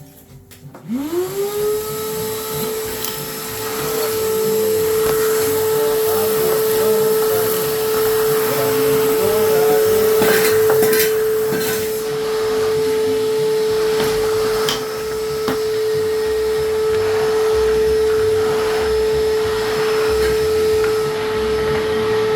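Shop vacuum switched on, its motor whine rising to a steady pitch and running, with a few clicks and rattles around the middle. It starts to wind down at the very end as it is switched off. This is the clean-up of demolition debris.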